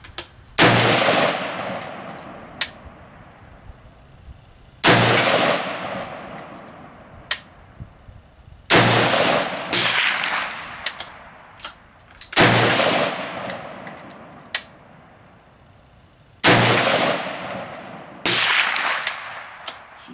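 DPMS Oracle AR-15 firing 5.56×45mm rounds, six single shots a few seconds apart with a seventh right at the end. Each shot has a long echo dying away, and light clinks come between the shots.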